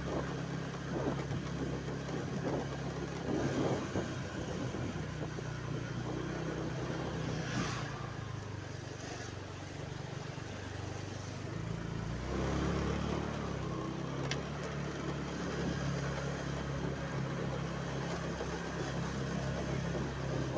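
A vehicle engine running steadily, with a brief rise in its low rumble about twelve seconds in.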